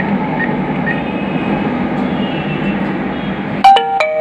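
ATM keypad beeping faintly as PIN digits are keyed in, over a steady background noise; near the end the machine gives two loud electronic beeps close together, the second lower in pitch, as it accepts the PIN.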